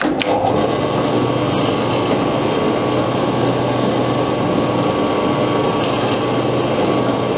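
Benchtop drill press running steadily while drilling holes in a thin wooden strip.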